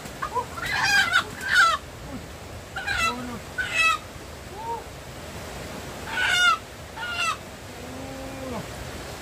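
Wild chicken caught in a trap, squawking in distress: loud harsh calls, mostly in pairs, each falling in pitch at the end, repeated every few seconds.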